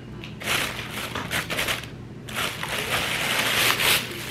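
Thin plastic carrier bag rustling and crinkling as it is handled and lifted. The sound comes in two long stretches, one starting about half a second in and the other just past the middle, and is loudest near the end.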